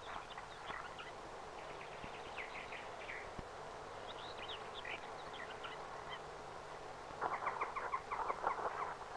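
Small birds chirping and twittering in short phrases over a faint steady hum. Near the end, a quick run of steps crunching on the path as a man and a dog approach.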